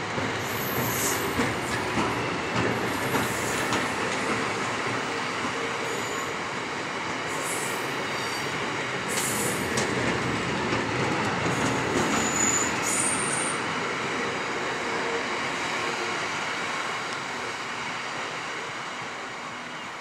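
Loaded freight tank wagons rolling past close by, wheels and bogies clattering on the rails, with brief high-pitched wheel squeals now and then; the noise fades toward the end as the last wagon draws away.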